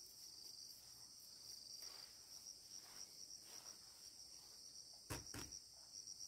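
Faint, steady high-pitched insect chorus of crickets trilling. About five seconds in come two sharp knocks, a fraction of a second apart.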